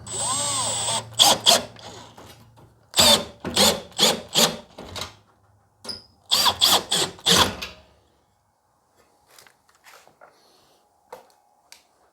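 Cordless drill driver running, first a steady spin for about a second, then in short trigger bursts in groups, driving self-tapping screws into the door bracket. Only faint small clicks follow after about eight seconds.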